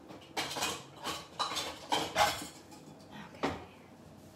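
Pot lids and pans clattering together as they are handled, a quick run of clanks over about two seconds and one more clank near the end.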